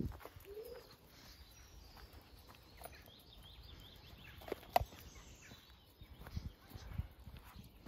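Footsteps on a dirt path, with faint birdsong: a quick run of short chirps a few seconds in. A single sharp click about five seconds in is the loudest sound.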